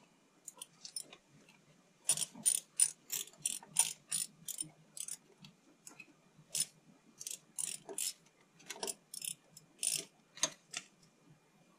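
Ratchet with a hex-bit socket clicking in short, uneven runs as it turns out the Allen bolts of a turbo diverter valve.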